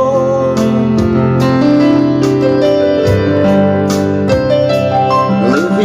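Electric piano playing sustained worship chords with steady soft strikes about once a second, between sung lines.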